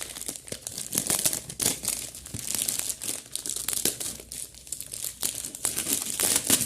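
Packaging being handled and opened by hand: irregular crinkling and crackling, with some tearing.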